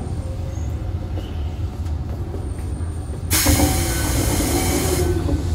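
Toei 5300 series subway train standing at a platform with a low steady hum from its on-board equipment. A little over three seconds in, a loud hiss of compressed air vents for under two seconds and then stops.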